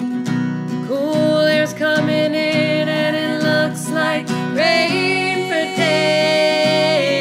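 Acoustic guitar strummed under two women's voices singing together in harmony, the voices coming in about a second in and holding long notes.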